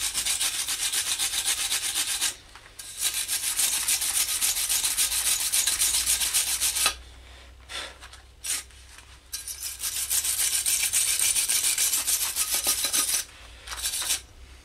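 MIG welder crackling as it welds 1.5 mm mild-steel pipe, in three runs of a few seconds each with short pauses between.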